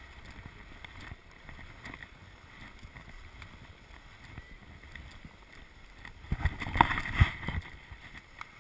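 Skis sliding and scraping over packed snow, with small scattered clicks. About six and a half seconds in comes a louder cluster of knocks and scrapes lasting about a second.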